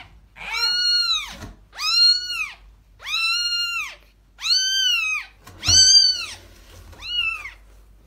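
A grey kitten meowing six times in a row, about one call a second. The calls are high-pitched, and each rises and then falls.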